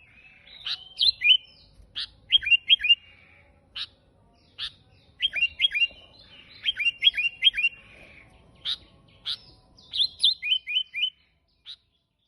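Sooty-headed bulbul singing: quick phrases of three to five sharp, falling chirps, broken by single short notes.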